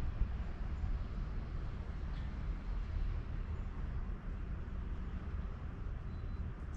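Steady low outdoor background rumble with no distinct event in it.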